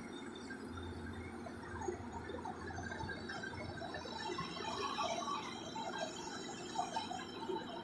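Heavy excavator at work: a low engine drone under many short metallic squeaks and clinks, busier in the second half.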